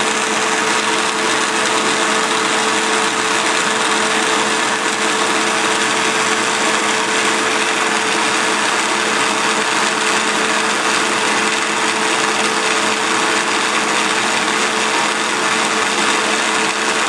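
Vacuum cleaner running steadily, its motor giving a constant hum over a broad rushing noise.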